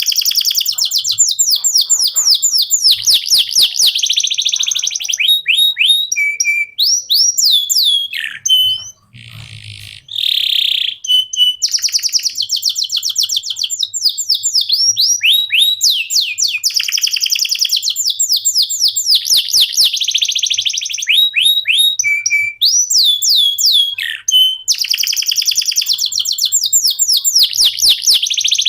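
Domestic canary singing a long song of fast trills and rolls, with runs of repeated downward-sweeping notes. The song breaks off briefly about nine seconds in, then carries on.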